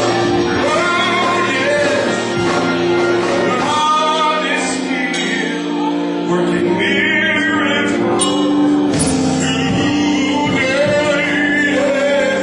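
Gospel music with male singing over sustained chords, live in a church hall.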